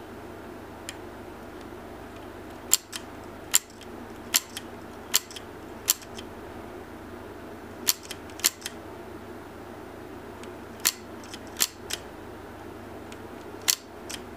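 Leaf shutter of an Agfa Billy Record folding camera being worked by hand: about ten sharp clicks at uneven intervals, some followed closely by a smaller click. The shutter is in working order.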